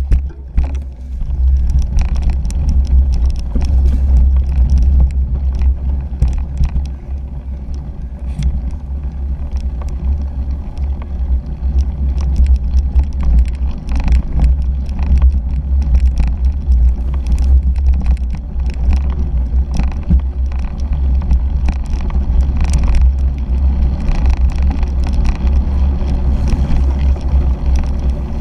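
A 2017 Fuji Jari 1.5 gravel bike ridden over bumpy dirt and grass, heard through a GoPro Hero 3 mounted on the bike. A steady low rumble of wind and vibration runs under frequent sharp rattles and clicks as the bike jolts over the rough ground.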